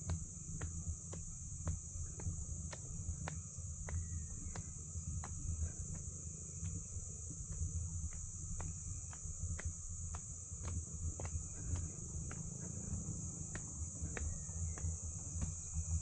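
Steady high-pitched insect chorus, with footsteps in sandals on a dirt and stone path clicking about twice a second and a low rumble underneath.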